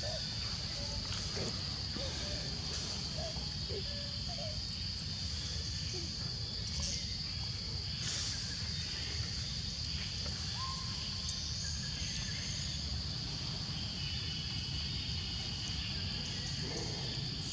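Insects in the roadside forest droning steadily in one high continuous note, over a low even rumble.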